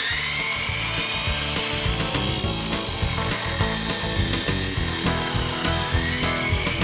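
Abrasive chop saw cutting through a metal tube, its motor whining high. The pitch sags as the blade bites under load and climbs again near the end as the load eases. The saw is a weak, underpowered one. Music plays underneath.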